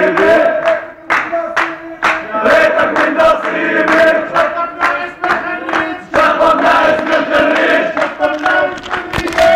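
A crowd of young men chanting and singing a traditional Arabic zaffeh together in unison, with sharp hand claps scattered through the singing.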